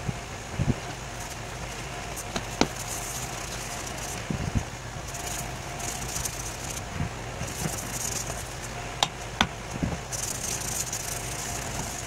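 Wood lathe motor running with a steady hum while a cloth rag rubs finish onto the spinning wooden bowl in short hissing swishes. A few sharp clicks come through: one near the start and two close together later on.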